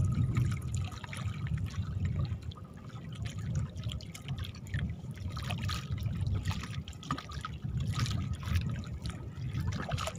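Sea water lapping and trickling against the side of a small boat, with scattered small splashes over an uneven low rumble.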